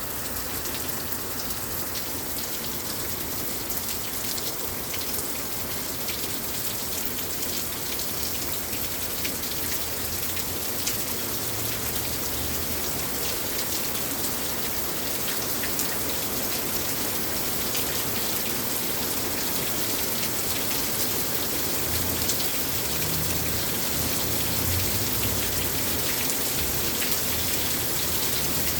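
Heavy rain pouring down in a thunderstorm: a steady, dense hiss of rain with countless fine ticks of drops striking surfaces, growing slightly louder over time.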